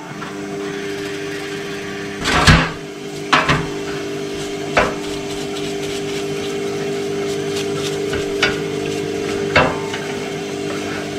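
Several sharp knocks and clatters of parts being handled, the loudest a few seconds in, over a steady machine hum.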